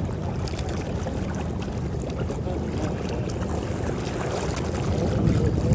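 Wind on the microphone and choppy sea water: a steady low rumble with faint scattered splashing ticks.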